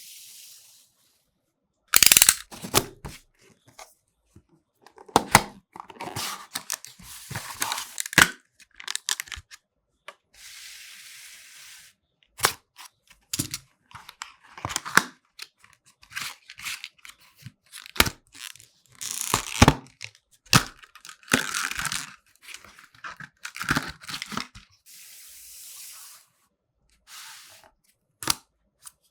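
PC parts packaging being handled at close range: paper and plastic tearing and crinkling in short rustles, with many sharp clicks and taps.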